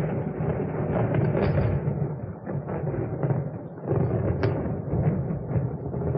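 Thunder rumbling with crackles. It eases off about two seconds in, then swells again about four seconds in with a sharp crack.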